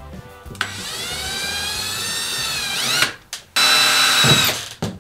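Cordless drill boring a pilot hole down through the bus's plywood floor. The motor's pitch sags under load, then rises sharply as the bit breaks through and it stops about three seconds in. A second, shorter run at steady speed follows about half a second later.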